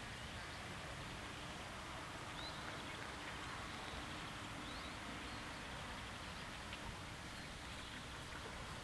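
Steady outdoor background noise at a level crossing while waiting for a train, with a couple of faint bird chirps.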